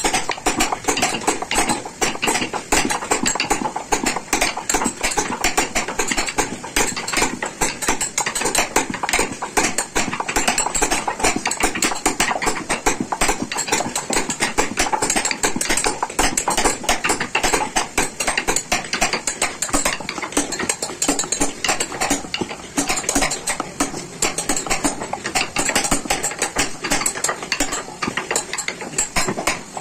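Small hammer rapidly tapping a carving chisel into wood, a fast, unbroken run of light taps.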